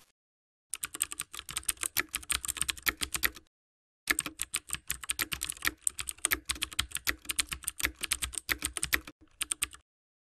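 Keyboard typing sound effect: a fast run of key clicks, a short pause after about three seconds, then a second, longer run that stops shortly before the end.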